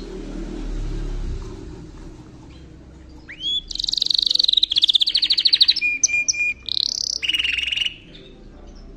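Yorkshire canary singing, a phrase of about four and a half seconds that starts a few seconds in: fast high trills, a repeated steady note and rising sweeps. It is the song of the start of conditioning for the breeding season. A faint low rumble comes before it.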